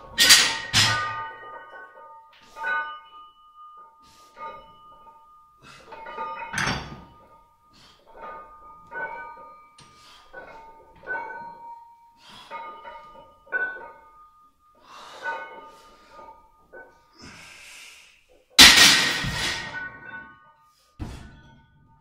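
Loaded barbell with iron weight plates clanking and ringing on each rep of a heavy bench-press set, about every two seconds. Louder clangs come at the start, about seven seconds in, and near the end, the last as the bar is set back in the rack's hooks.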